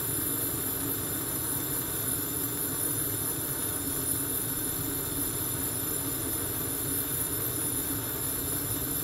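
Gas hob burner running on a steady flame: an even rushing hiss with a low rumble.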